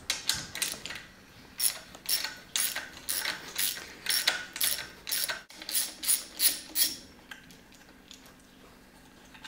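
Socket ratchet clicking in short back-and-forth strokes, about two a second, as it undoes the water pump housing nuts on an outboard lower unit; it stops about seven seconds in.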